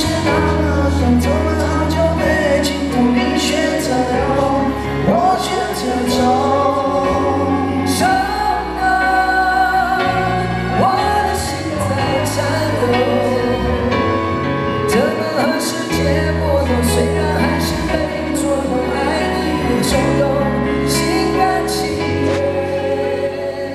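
Live band playing a song on stage: electric guitar, keyboard, bass and cymbals, with a voice singing over them through the arena sound system.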